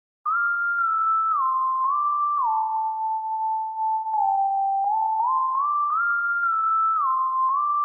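Music: a lone pure, sine-like synthesizer lead plays a slow melody, gliding smoothly from one note to the next. It comes in just after the start, with no drums or other instruments.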